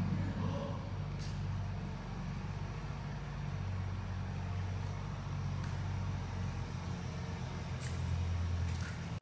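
A steady low mechanical hum, swelling slightly near the end, with a few faint clicks.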